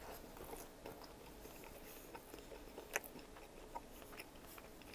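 Close-up chewing of a bite of toasted sub sandwich: soft, wet mouth sounds with scattered small clicks, and one sharper click about three seconds in.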